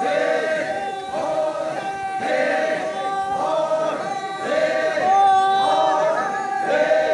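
A large group chanting a traditional Naga folk song in unison, many voices together, with a short phrase repeated over and over and falling away in pitch at each end.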